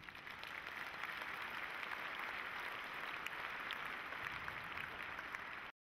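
Audience applauding, swelling over the first second, then steady until it cuts off abruptly near the end.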